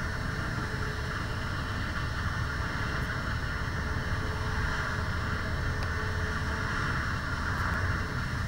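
Self-propelled forage harvester running steadily while chopping maize and blowing it into a trailer: an even, unbroken rumble and rush with a faint tone held on one pitch.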